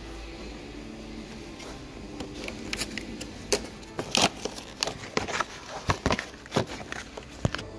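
Hard plastic of a car's air filter housing and filter element being handled: a quick string of sharp clicks, knocks and scrapes, starting about two seconds in and thickest in the middle.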